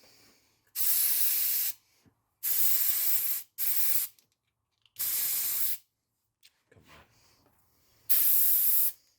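Compressed air hissing in five short bursts, each under a second, from a leak-down tester's air hose as it is coupled to an engine cylinder.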